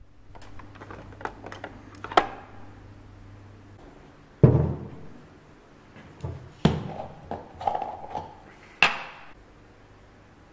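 Knocks, clinks and thuds of a glass jar and tins being handled and set down on a wooden workbench. The loudest thud comes about four and a half seconds in, with a run of sharper knocks after it.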